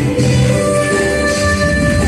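Loud dance music, instrumental at this point, with long held notes over a strong bass.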